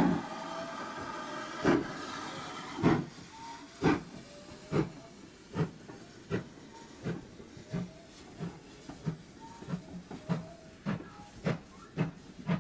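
Great Western Churchward 2-6-0 mogul steam locomotive pulling away with its train. Its whistle dies away in the first second or so, then its exhaust beats come faster as it gathers speed, from one every second and a half to nearly two a second, over a steady hiss of steam.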